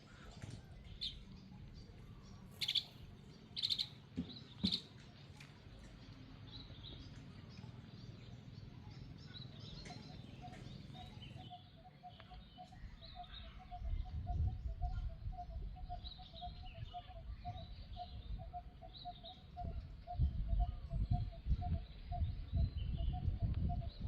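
Birds chirping, with several short loud chirps in the first few seconds. About ten seconds in, a steady, fast-pulsing trill joins them and keeps going.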